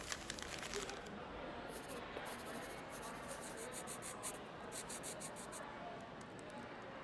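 Indoor public-space ambience in a student centre: a low murmur of voices and room noise, with quick rustling, scraping and clicking close by at the start and again from about two seconds to near six.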